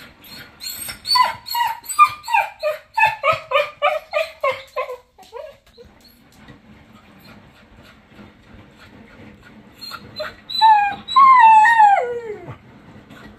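Cocker spaniel vocalizing: a rapid string of short cries, each falling in pitch, about three a second for some four seconds, then after a pause one longer howl that slides down in pitch near the end.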